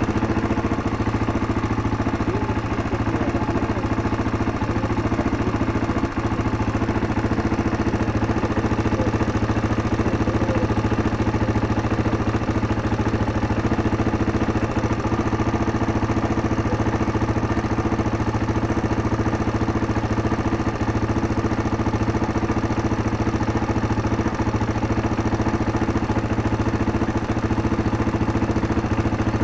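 1999 Yamaha Serow's single-cylinder four-stroke engine idling steadily, with the ticking of its valves audible; the mechanic takes it that the valves only need adjusting. A single brief click about six seconds in.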